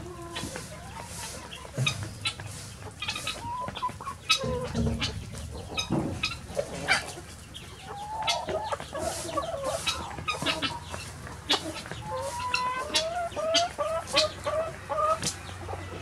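Flock of hens and roosters clucking as they forage, with runs of short, quick clucks in the second half and scattered sharp clicks throughout.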